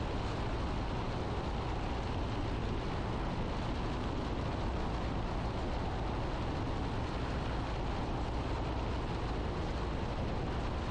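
Piper Archer PA-28-180 in cruise flight: the steady drone of its four-cylinder engine and propeller with airflow noise, heard inside the cabin.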